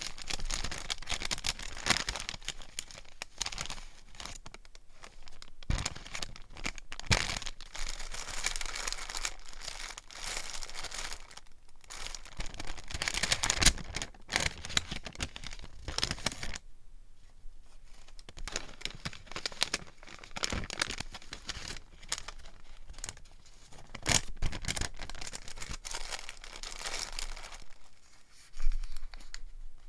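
Glassine envelopes and old paper being handled close up: steady crinkling and rustling with sharp crackles as stamps are sorted. There is a short pause a little past halfway, and a louder rip of paper near the end.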